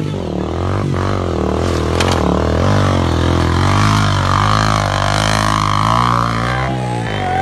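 Small motorcycle engine labouring through deep mud, its revs rising and falling over and over as the rider works the throttle.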